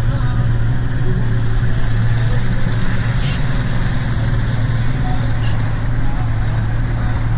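A motorboat's engine running steadily with a low, even hum, with faint voices over it.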